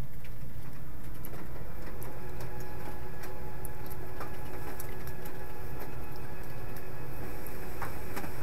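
Steady low background rumble with faint scattered clicks; a faint steady hum comes in about a second in.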